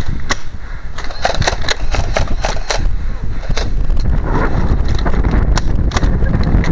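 Nerf foam-dart blasters being primed and fired: repeated sharp clacks and pops at irregular intervals. Wind buffets the microphone underneath as a steady low rumble.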